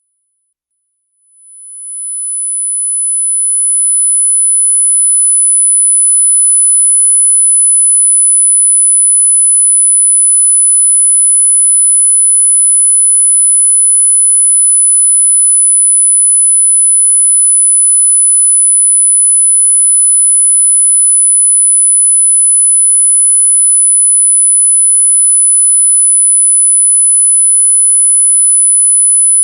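A steady 10,000 Hz sine test tone, a single high-pitched whistle that fades in during the first few seconds and then holds at a constant level.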